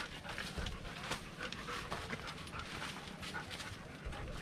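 Dog panting, with many short scattered clicks and crunches around it.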